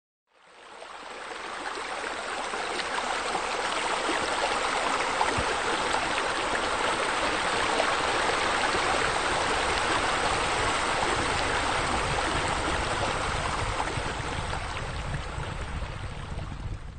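Steady rush of water spilling from sheer-descent waterfalls into a pool. It fades in over the first couple of seconds and eases a little near the end.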